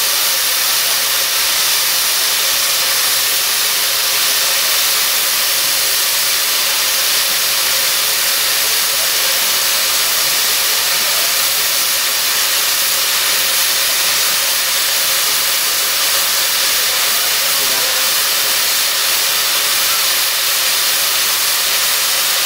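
LB&SCR Terrier 0-6-0 tank locomotive No. 672 Fenchurch blowing off steam: a loud, steady hiss with no exhaust beats.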